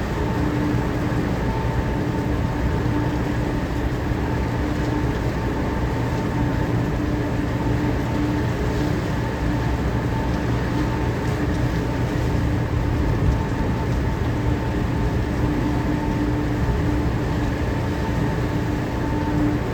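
Steady machinery drone: a heavy low rumble with a constant hum tone above it, unchanging throughout.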